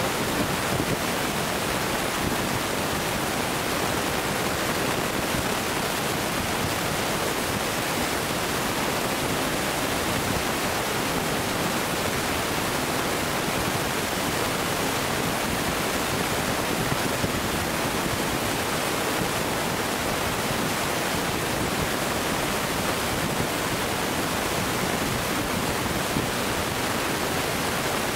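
Steady, even rushing noise with no distinct bangs or other events.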